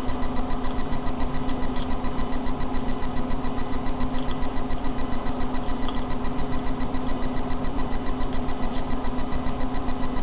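A steady machine-like hum that pulses evenly about five times a second, with a few faint clicks over it.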